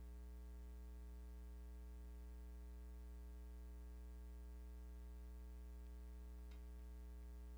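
Faint, steady electrical mains hum with a stack of overtones, and a faint click about six and a half seconds in.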